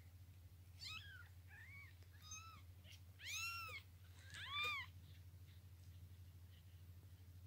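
Cat meowing: about five short high-pitched mews, each rising then falling in pitch, the longest and loudest about three and a half seconds in, then quiet apart from a faint steady hum.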